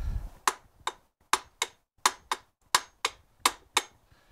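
A soft-faced hammer striking the end of a steel shaft in a David Brown 990 tractor gearbox casing, about ten sharp taps in quick pairs, tapping the shaft back in so it doesn't pop out.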